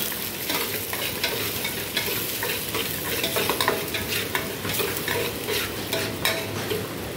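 A hand stirring and swishing fish pieces in water in a metal basin, with a steady wet rustle and many small irregular clicks and knocks against the bowl.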